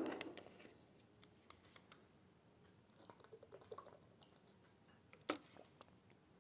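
Faint rustling and light crinkling of cloth and plastic wrapping as a folded chudithar dress-material set is opened out by hand, with a louder rustle dying away at the start and one sharper click a little after five seconds.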